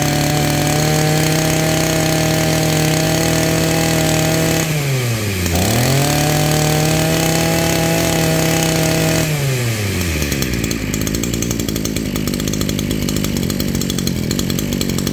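Maruyama BIG M brush cutter engine (32 mm bore) held at high revs, dipping briefly about five seconds in and revving back up, then dropping to idle about ten seconds in.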